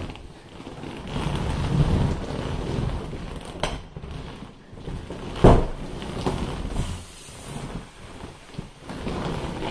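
Vinyl of a large inflatable wolf pool toy being pressed and handled: rubbing and squeaking plastic with air rushing out of its punctures. A sharp click comes a little over three and a half seconds in, and a louder thump about five and a half seconds in.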